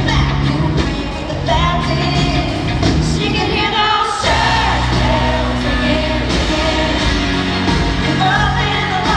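Live concert sound: a country-pop band playing with a woman singing the lead melody.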